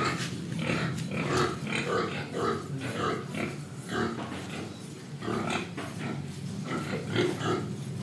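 Young domestic pigs grunting, a run of short grunts about two or three a second.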